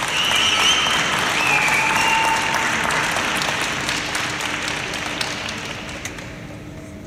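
Arena crowd applauding a figure skater, with a few high-pitched cheers in the first couple of seconds. The applause fades away steadily and has largely died out by the end.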